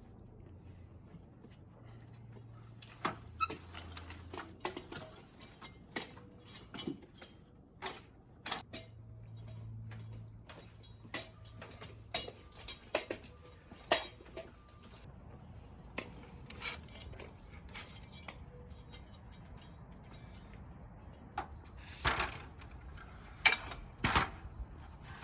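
Irregular clicks, knocks and light clatter of objects being handled, with several louder knocks near the end.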